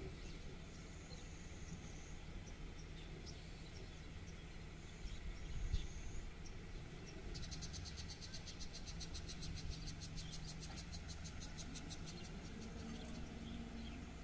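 Outdoor ambience: a steady low rumble with a few short high bird chirps in the first half, then an insect's rapid high-pitched trill for about four seconds in the middle.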